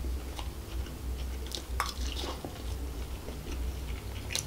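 Close-miked eating: a spoon scooping fried rice off its plastic wrapper, then chewing, heard as scattered small clicks and crackles.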